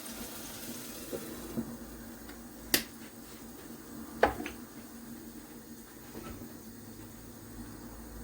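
Pot of food simmering with a steady hiss, broken by a few sharp clicks; the two loudest come about a second and a half apart, near the middle.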